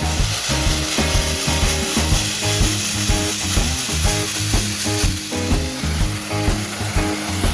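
Sandblaster spraying abrasive in a steady hissing rush that starts abruptly at the beginning, over background rock music with a steady beat.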